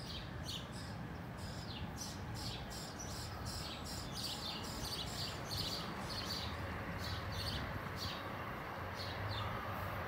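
Small birds chirping: many short, high chirps that drop in pitch, a few each second, over a low, steady background rumble.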